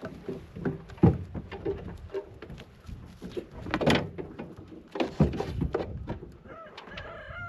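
Irregular knocks, clicks and rattles of things being handled, with loud thumps about a second in, around four seconds and just after five. Near the end a pitched call begins, a rooster starting to crow.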